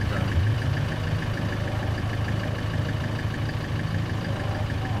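A 4x4's engine idling steadily: a low, even hum with no revving.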